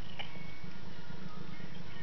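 Background music playing steadily, with a single short click about a quarter second in.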